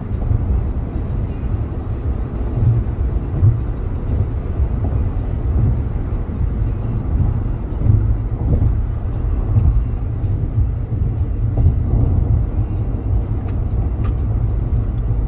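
Steady low rumble of a car on the move, with road and tyre noise heard from inside the cabin.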